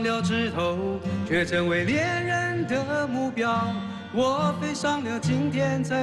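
A man singing a Mandarin pop ballad into a microphone over band accompaniment.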